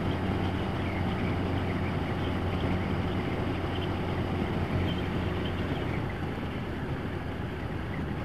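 Yamaha motorcycle engine running at a steady cruise with wind and road noise, heard from the rider's seat.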